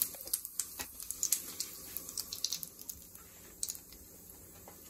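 Cumin seeds, dried red chillies and freshly added asafoetida sizzling and crackling in hot oil in a kadai as a tadka (tempering). The small pops are thickest for the first three seconds or so, then thin out.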